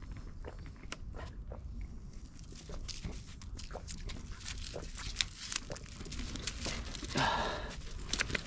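Small scuffs and clicks of feet and paws on rocky, leaf-strewn ground. About seven seconds in comes a man's long breathy "ahh", a sigh of relief after a drink of water.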